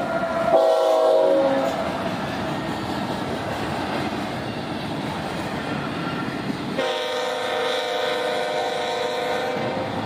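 Locomotive horn sounding a chord in two blasts: a short one about half a second in that sags in pitch as it ends, then a long one from about seven seconds in that lasts to near the end. Between them the train runs on the rails.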